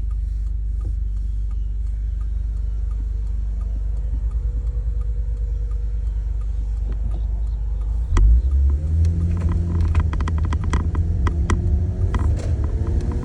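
1991 Toyota Soarer driving with a steady low road and engine rumble. The rumble grows louder and deeper about two-thirds of the way in, and then a quick run of sharp clicks follows; this is the kind of clicking the owner is trying to trace on the car's left side.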